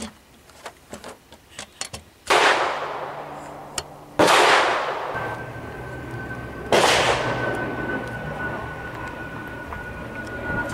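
Three gunshots on a shooting range, about two seconds apart, each a loud crack trailing off in a long echo. Before them come light clicks and knocks of a padded gun rest and rifle being handled.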